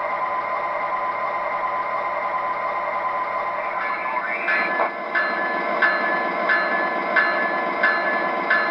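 MTH O-gauge GE Evolution Series diesel locomotive with a steady engine sound from its speaker. About four seconds in it gives way to the model running along the track, with regular clicks about one and a half times a second like wheels over rail joints.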